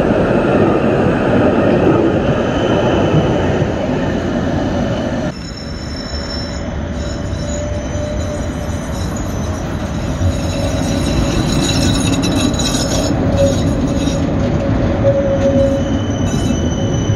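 An electric tram rolls past close by with a loud rumble of wheels on rail. About five seconds in the sound cuts to another tram coming round a curve, its wheels squealing on the rails in several thin, steady high tones as it draws near and passes.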